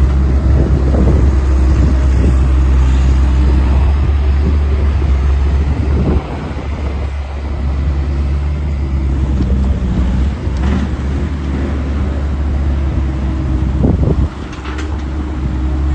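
Bobcat S150 skid steer's diesel engine running steadily, with a low hum. The level drops suddenly about six seconds in and again near the end, and a few light knocks sound over the engine.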